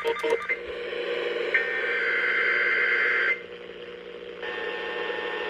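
Emergency Alert System header received on a radio over hiss: a screechy burst of digital data tones, a pause of about a second, then the steady two-tone attention signal starts near the end.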